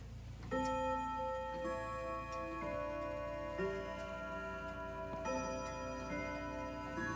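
Ridgeway grandfather clock playing its chime melody: struck chime notes starting about half a second in, roughly one a second, each ringing on under the next, with the clock's ticking beneath.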